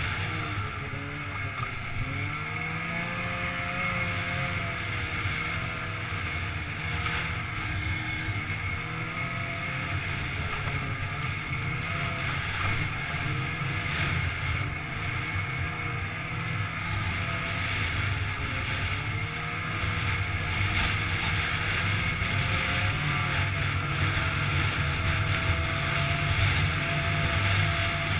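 Polaris snowmobile engine running while riding a trail, its pitch rising and falling as the throttle opens and eases, a little louder over the last third.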